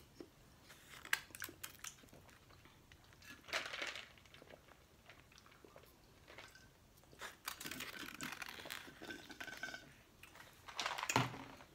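Close-up eating sounds: chewing and mouth noises with scattered light clicks and rustles from the food containers and foil, and a louder short burst near the end.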